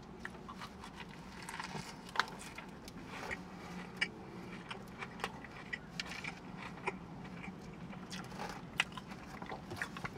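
A person chewing a mouthful of sub sandwich, with small irregular clicks of the mouth throughout.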